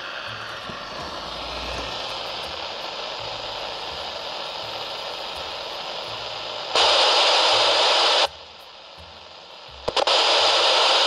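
Open-squelch receiver hiss from a President Harry III CB radio's speaker with no antenna connected. About seven seconds in, and again near the end, it jumps to a much louder hiss for a second or two as a wire touches the antenna socket. The louder hiss is the sign that the radio is most likely fully working and any fault lies in the antenna.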